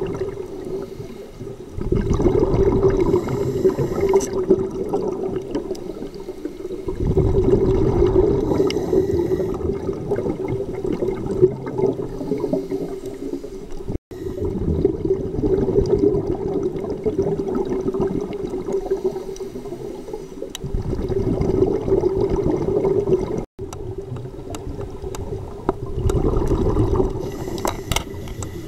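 Scuba diver breathing through a regulator underwater: exhaled bubbles rumble and gurgle in swells about every five to six seconds, over a steady low hum.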